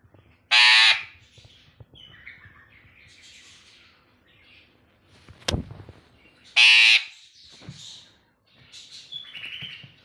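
Eclectus parrot giving two loud, harsh squawks about six seconds apart, with softer chattering calls between them and a single sharp click midway.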